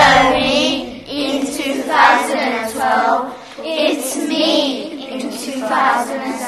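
Young voices singing a melody in several short phrases, with held, wavering notes.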